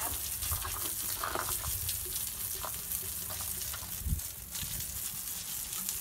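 Garden hose spraying water onto a patio: a steady hissing, spattering spray with a low thump about four seconds in, cutting off suddenly at the end.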